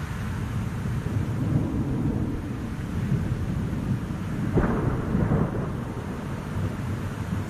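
Rainstorm: steady rain under a low, rolling rumble of thunder that swells about four and a half seconds in.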